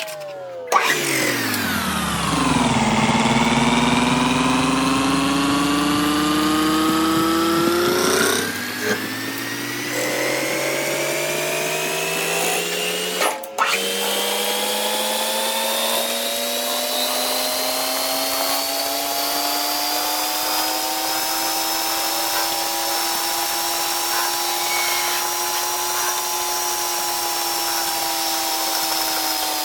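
CNC lathe machining a bolt, its spindle drive whining over a hiss of cutting noise. The pitch drops sharply in the first couple of seconds, climbs slowly through most of the run, then falls near the end, with brief breaks about 8 and 13 seconds in.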